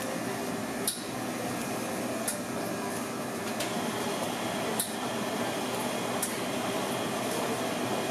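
Café background: a steady machine whir with four sharp clinks of crockery and glass spread through it.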